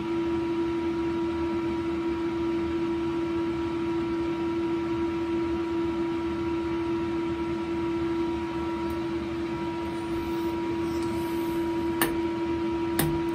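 Steady machine hum, a strong constant tone over a hiss. Near the end, several sharp clicks as the parts washer's HEAT rocker switch is pressed.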